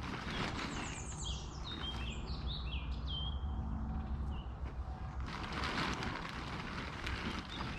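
A songbird singing a quick series of chirps that step down in pitch, about a second in, over a steady low rumble. A burst of rustling noise comes about five seconds in.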